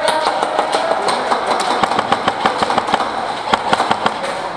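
Airsoft guns firing: rapid, irregular sharp cracks, several a second.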